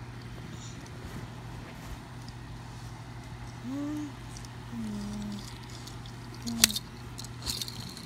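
Steady low room hum, with a few faint short voice-like sounds in the middle and a single sharp click a little before the end from handling the toy car.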